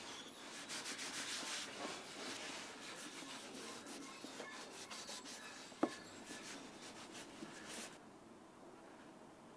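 A cloth rubbing boiled linseed oil thinly into a hardwood coaster, a run of quick wiping strokes with one sharp knock a little before six seconds in. The rubbing stops about eight seconds in.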